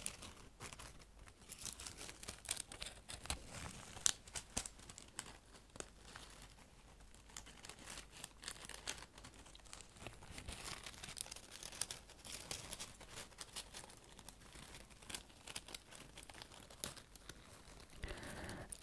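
Dry leaves crinkling and crackling as gloved fingers handle and crush them right at the microphone: a faint, irregular stream of small dry crackles.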